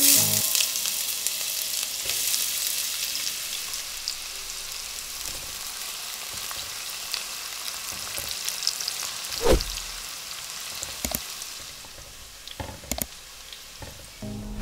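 Chopped red onions hitting hot oil in a pan, starting with a sudden loud sizzle that eases into a steady sizzle as they fry. A few sharp knocks of the stirring spoon against the pan come in the second half.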